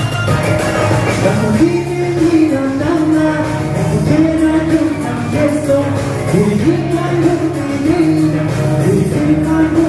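Live Tibetan pop song: a singer holding a melody in long notes over amplified backing music with a steady beat.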